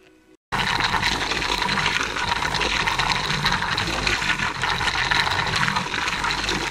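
Dual-action polisher with a foam pad buffing clearcoat on a motorcycle fairing. A steady rushing whir comes in abruptly about half a second in.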